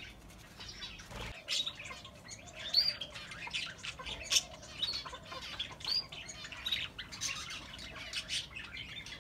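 Budgerigars and small finches in an aviary chirping: a continuous scatter of short, high calls, some with a quick rising-and-falling hook.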